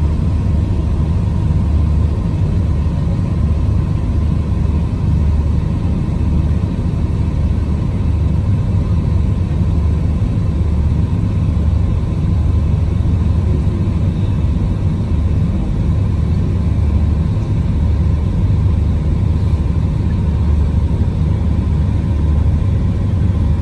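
Steady, loud low engine rumble of the boat the footage is shot from, with a faint steady hum above it.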